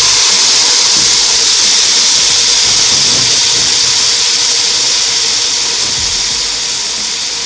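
Diced carrot, tomato and green pepper sizzling in hot oil in a pot, just tipped in on top of sautéing onion and garlic: a loud, steady hiss that slowly eases.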